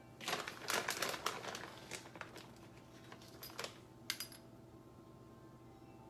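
Crinkling and rustling from shredded mozzarella being scooped and spooned out by the tablespoon, with a few light clicks and taps about three and a half and four seconds in.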